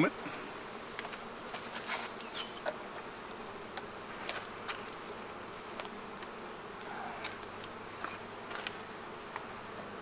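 Honeybees buzzing around an opened hive: a steady hum, with scattered light clicks throughout.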